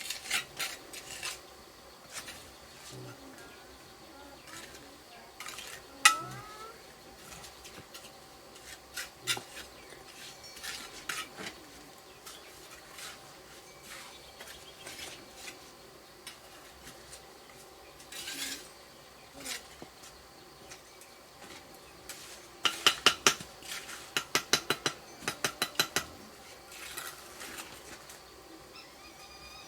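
Scattered light clinks and knocks, like utensils against a pot, with a quick run of about a dozen clicks near the end, over a faint steady hum.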